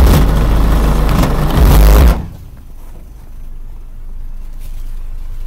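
Two RE Audio SEX 15-inch car subwoofers playing very loud, bass-heavy music, which cuts off suddenly about two seconds in. What is left is a quieter low steady rumble of the car idling.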